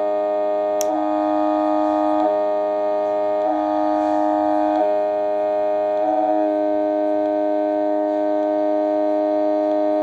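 DIY Weird Sound Generator synthesizer (a Music From Outer Space kit) playing a steady buzzy drone of stacked tones. Its tone switches back and forth about every second and a half, then holds steady for the last few seconds. A short click comes about a second in.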